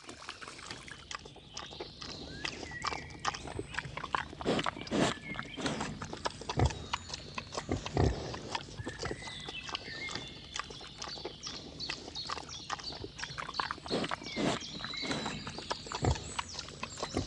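Several wild boar feeding on scattered grain at close range, with pig sounds and many short crunching clicks of chewing and rooting throughout.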